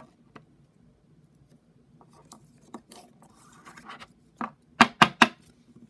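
A trading card being slid into a plastic sleeve and rigid plastic card holder: light rubbing and rustling of plastic, then three sharp taps in quick succession near the end.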